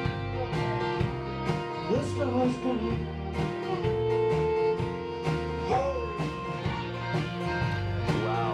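Live band playing a country-tinged folk-rock song: strummed acoustic guitar and electric guitar over a steady beat of about two strokes a second.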